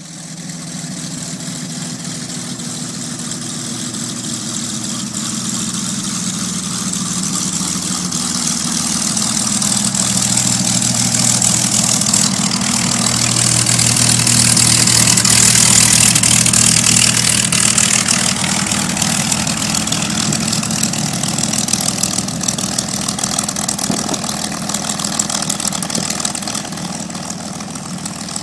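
Curtiss P-40E Warhawk's Allison V-1710 liquid-cooled V-12 engine running steadily at low taxi power as the fighter rolls past. It grows louder to a peak about halfway through, then fades a little as the plane moves away.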